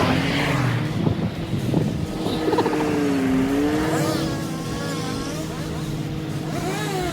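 Bucket truck's engine running while driving, a steady drone that dips in pitch and rises again about three seconds in.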